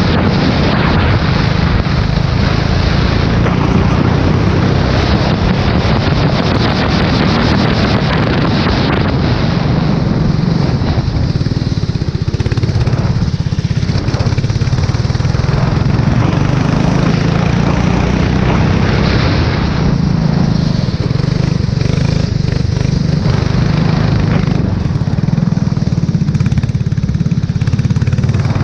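F4 race car engine running hard on track, heard onboard, with a dense hiss over it. The upper range eases off for a few seconds at a time.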